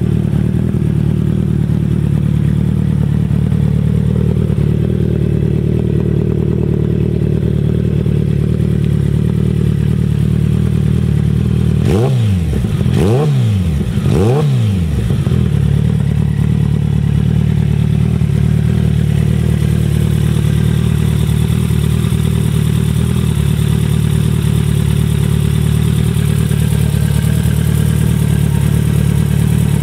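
Kawasaki ZX-14R's inline-four engine idling through a Brock's aftermarket exhaust, with three quick throttle blips about twelve seconds in, the revs rising and falling sharply each time before settling back to a steady idle.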